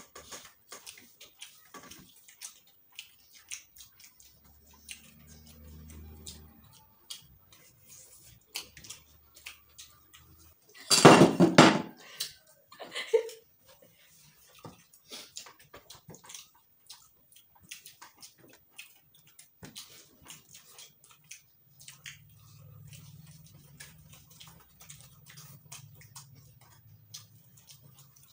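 Close-up eating sounds of several people eating by hand: wet chewing, lip smacks and fingers working sticky rice and fried egg on the plates, heard as a run of small clicks. A brief loud burst about eleven seconds in.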